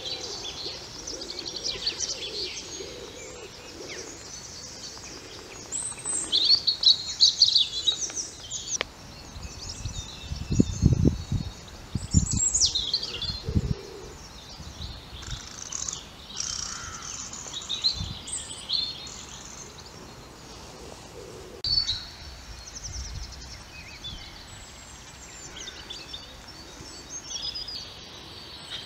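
Several wild songbirds singing and calling over one another, a busy mix of high chirps and trills. A few low thumps come in around the middle.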